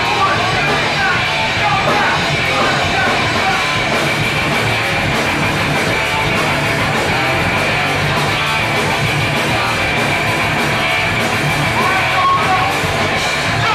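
A hardcore band playing live: distorted electric guitar, bass and drums, steady and loud, with a vocalist singing and shouting over them.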